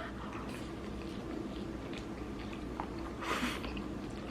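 Quiet chewing and small mouth clicks of someone eating birria tacos, with a brief soft hiss about three seconds in.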